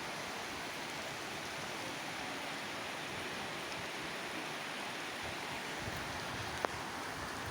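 Steady rain falling on tin roofs, with a single short tick near the end.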